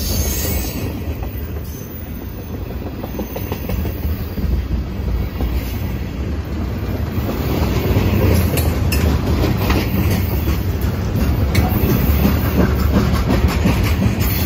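Tank cars of a speeding petroleum freight train rolling past close by: a steady low rumble with the clickety-clack of wheels over rail joints, growing louder about halfway through.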